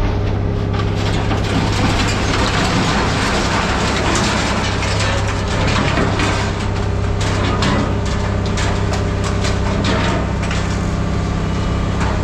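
Scrap metal crunching and cracking as it is crushed in a heavy machine, a dense irregular crackle with many sharp snaps. Under it the machine's engine drones steadily.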